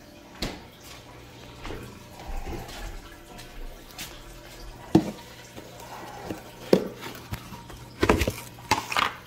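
Handling noise from a plastic food tub: a string of separate sharp knocks and clicks, several close together near the end, with light dripping water.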